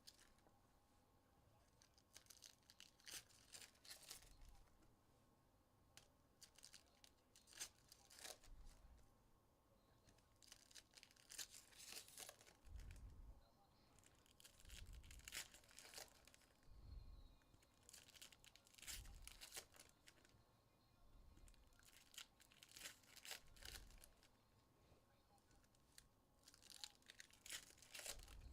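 Faint, scattered tearing and crinkling of trading-card pack wrappers being ripped open, coming in short clusters every second or two.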